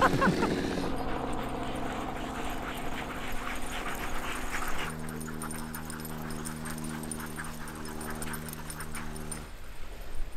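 Sled dogs barking and yipping as a harnessed team runs past, over a steady low engine hum that shifts about five seconds in and cuts off near the end.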